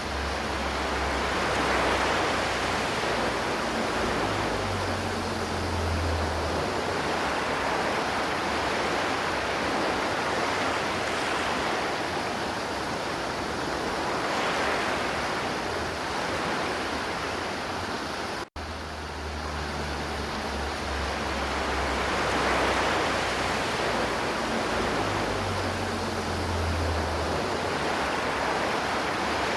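River water flowing, a steady rushing noise, with the sound cutting out for an instant about eighteen seconds in.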